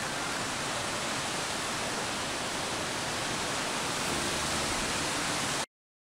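Waterfall water rushing in a steady, even roar over rocks, cutting off suddenly near the end.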